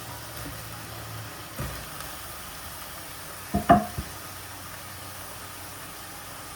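Cookware knocking: one soft knock, then three quick knocks with a brief ring, over a steady hiss.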